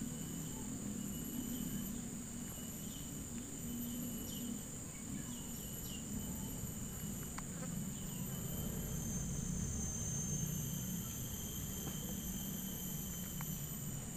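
Steady, high-pitched chirring of insects such as crickets, several trills held at once, over a low background rumble, with a few faint ticks.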